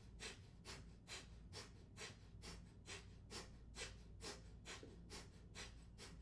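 Kapalabhati breathing through one nostril: a faint, rapid, even series of short, forceful nasal exhalations, a little over two a second, each driven by pulling in the belly.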